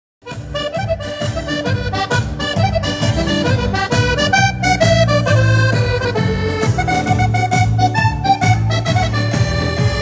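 Button accordion playing a lively dance tune into a microphone, with a steady beat in the bass; the music starts just after the beginning.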